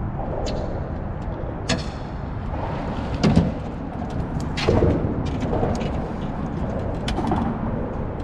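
Steady low rumbling noise with several short knocks or thumps, the loudest about a third of the way in.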